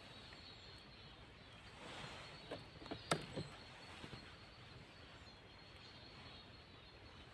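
Knife blade being worked into a birch trunk to bore a sap hole: faint scraping, then a few light clicks about three seconds in, over quiet forest background.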